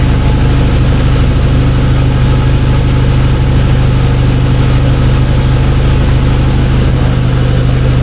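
Turbocharged Honda Civic R18 four-cylinder engine idling steadily between dyno tuning runs: a loud, even drone with no revving.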